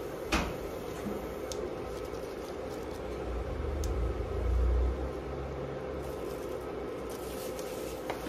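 Kitchen sounds at a wok of stir-fried noodles over a steady low hum: one sharp knock just after the start, a low rumbling thud about four to five seconds in, and a small tap near the end.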